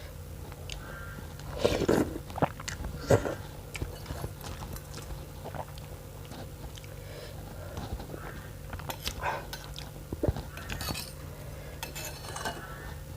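Close-up eating sounds: chewing and biting on noodles and bone meat, with scattered clicks and knocks of a spoon or fork against the bowl.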